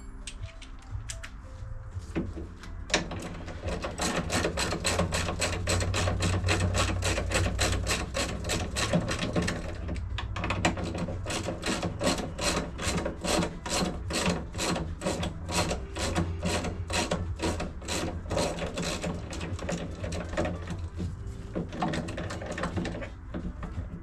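Background music with a steady, quick beat that starts about three seconds in and fades down near the end.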